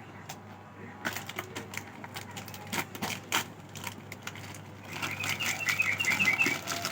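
Plastic snack packet crinkling and crackling as it is handled and torn open, in irregular clicks. Near the end comes a quick run of short high chirps.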